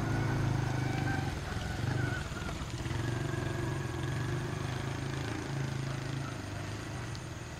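Motorbike engine running steadily at low revs, a low hum that swells and eases a few times.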